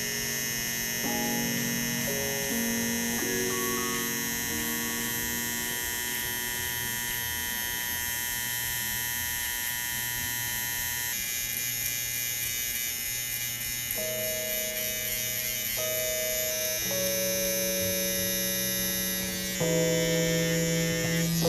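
Cordless T-blade hair trimmer running steadily with a high whine as it lines the hairline behind the ear. Soft background music with held notes that change every second or two, louder near the end.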